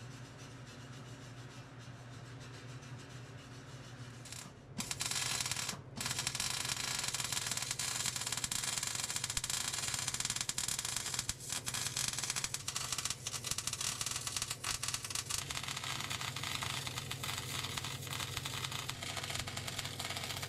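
A MIG welder's arc crackling and sizzling as a new exhaust tip is welded onto a truck's tailpipe. It starts about five seconds in after a faint low hum, breaks off briefly, then runs on with short pauses.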